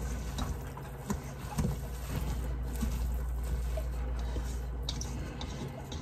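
Silicone spatula stirring diced chicken and cauliflower rice in a stainless steel mixing bowl: soft stirring and scraping, with a few light knocks of the spatula against the bowl.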